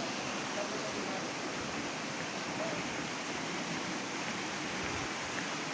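Steady rush of water from a waterfall on a hill stream.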